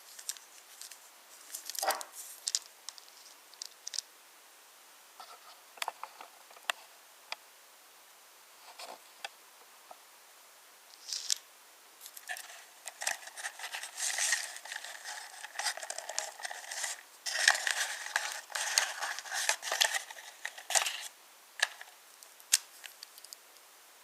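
Wooden toy trains clicking and clattering on wooden railway track: scattered clicks and knocks at first, then a dense run of rattling from about halfway in that stops shortly before the end, with a few last clicks.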